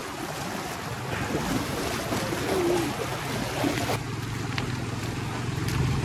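Shallow mountain river rushing over stones, with splashing from wading through it. A low wind rumble on the microphone comes in about four seconds in.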